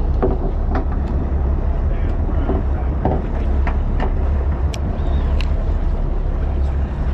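A charter fishing boat's engine idling in a steady low rumble, with scattered small clicks on top.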